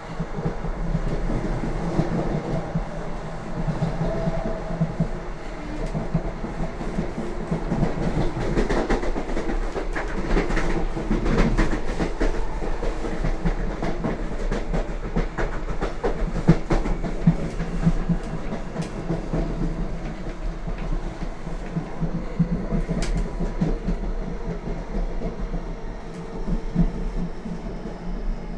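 Lastochka (Siemens Desiro RUS) electric train running along the line, heard on board: a steady rumble with the wheels clattering over the rail joints, the clicks coming thickest about a third of the way through.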